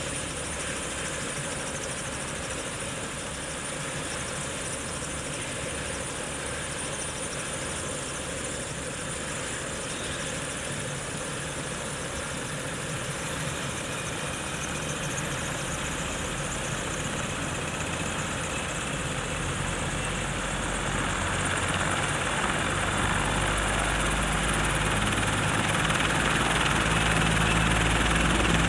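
Bell 430 twin-turbine helicopter starting up on the ground: a turbine whine rising slowly in pitch as the main rotor spins up. The low rotor beat comes in during the last third and the whole sound grows steadily louder.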